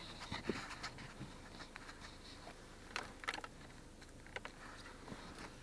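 Faint, irregular taps of raindrops on a car's windshield and roof, over the low, steady hum of the car's interior while driving.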